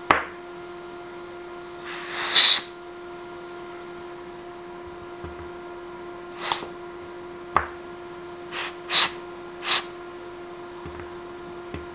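Bursts of compressed air hissing from a 3D-printed pneumatic valve block and double-acting cylinder as the valve rod is pushed and the piston shifts: one longer hiss about two seconds in, then four short ones, with a light click, over a steady hum. The valve rod tends to push itself back out, which the builder puts down to too much supply pressure and poorly designed relief.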